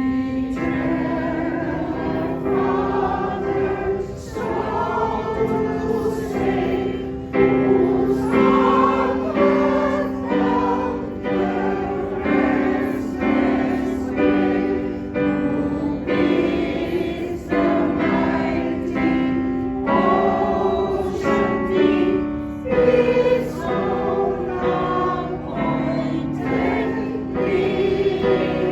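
Community choir singing a song together, holding sustained notes that move in steps.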